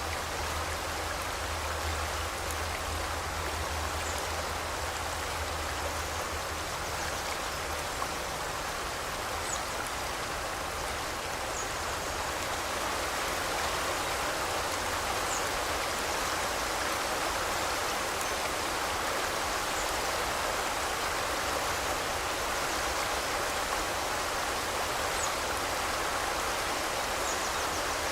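A river flowing steadily: an even, constant rushing of water. A few faint, brief high chirps from birds come now and then.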